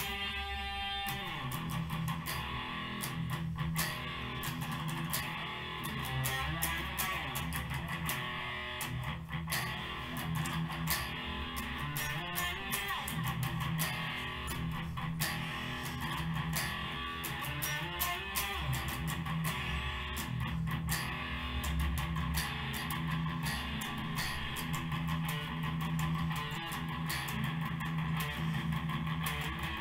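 Electric guitar being played without pause, a steady stream of picked notes and chords.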